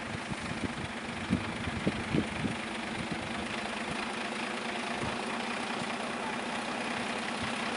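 Steady engine hum running throughout, with a few low thumps about one to two and a half seconds in.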